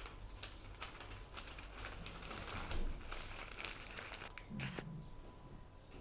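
White wrapping paper rustling and crackling as a lavash kebab wrap is folded up in it by hand, busiest about two to four seconds in.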